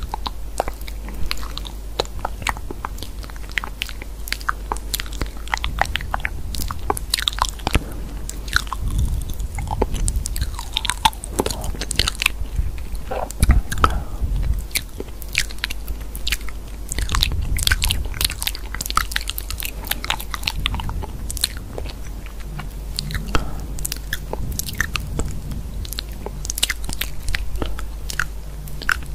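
Dense, irregular crisp crunching and clicking, with heavier crunches here and there, over a steady low hum.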